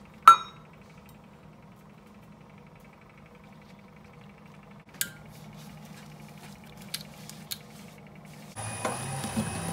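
A hard object clinks once with a short ring, followed later by another click and a few light taps; near the end water starts pouring, in keeping with water being added to snow powder to make it puff up into fake snow.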